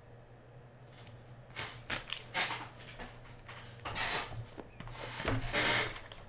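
Trading cards and their packaging being handled: short rubbing swishes and light clicks as cards are slid and set down, the busiest stretch near the end.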